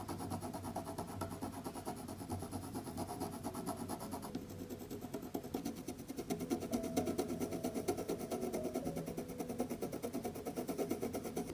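Faber-Castell Polychromos oil-based coloured pencil shading on vellum paper: rapid, even back-and-forth scratching strokes of the lead on the paper.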